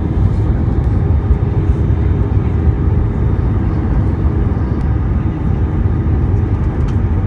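Steady, loud cabin noise of an Airbus A320 airliner in flight: a deep, even rumble of the jet engines and rushing air, heard from a window seat over the wing.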